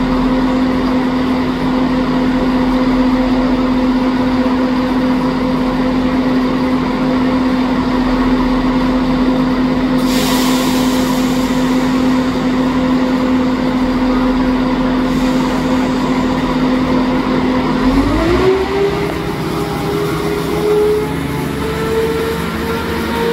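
Diesel engine of a CrossCountry Class 170 Turbostar unit running at a steady note, with a hiss about ten seconds in. About 18 seconds in the engine note rises and holds higher as the train powers up.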